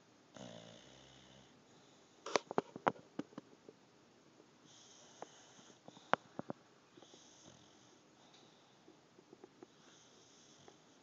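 English bulldog snoring in its sleep: a low rattling snore in the first second, then slow hissing breaths every two to three seconds. A cluster of sharp clicks, the loudest sounds, comes a couple of seconds in, with another near the middle.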